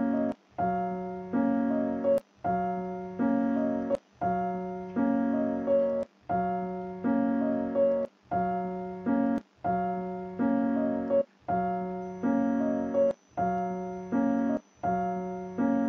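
Keyboard music: a short two-chord piano-like figure played over and over, repeating roughly every second and a half with a brief break between repeats.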